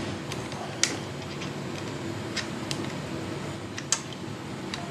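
Scattered small metallic clicks from handling the aluminium brake-pedal side plate and its cotter-pin linkage, about six in all, the loudest about a second in and near four seconds, over a steady low hum.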